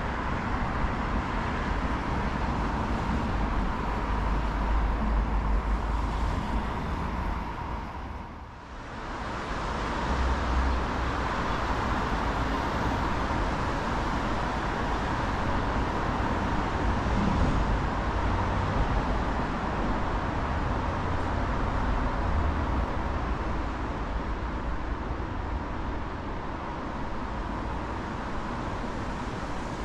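Steady city road-traffic noise: an even wash of sound with a low rumble, briefly dipping about eight seconds in.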